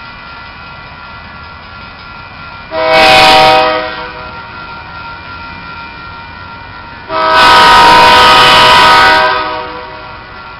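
Diesel locomotive air horn sounding twice: a short blast about three seconds in, then a longer blast of about two seconds, each a multi-note chord, over a steady background hum.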